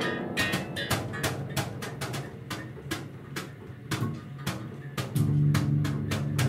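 Free improvised music on electric guitar and double bass: a stream of sharp, irregular percussive hits, a few a second, with a low sustained bass note entering about five seconds in.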